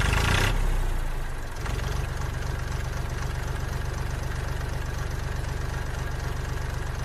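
Engine idling with a steady, fast, low chugging, a little louder in the first second and a half.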